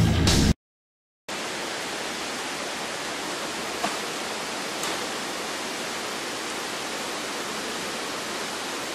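Guitar music cuts off about half a second in; after a brief silence comes the steady rush of a waterfall pouring into the river.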